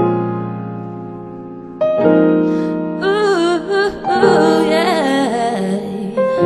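Piano chords played slowly and held, with a woman's voice singing a wavering melody over them from about three seconds in.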